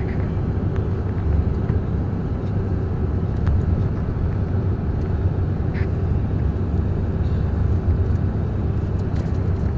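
Moving vehicle's steady low rumble of road, engine and wind noise.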